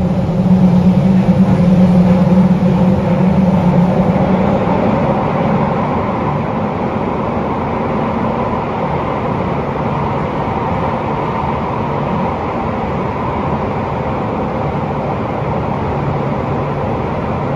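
Running noise heard inside a Toei Oedo Line 12-600 series linear-motor subway car with a Hitachi SiC inverter, moving at speed through the tunnel. A steady low hum is loudest for about the first four seconds, then eases off under an even rumble of the running gear.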